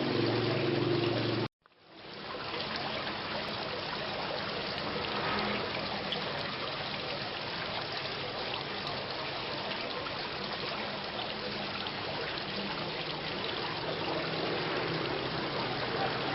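Steady rain with water trickling and running. About a second and a half in, the sound cuts out briefly and then fades back in.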